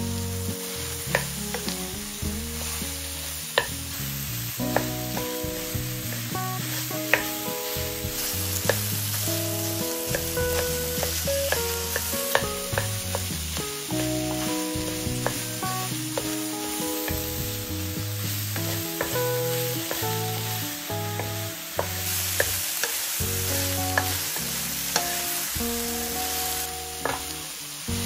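Food sizzling in a frying pan, with occasional sharp clicks of a utensil against the pan as it is stirred, over background music.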